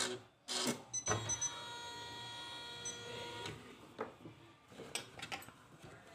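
Usha Janome Memory Craft 450E computerized embroidery machine running near the end of a design: a click, a steady whine for about two and a half seconds, then a few scattered clicks.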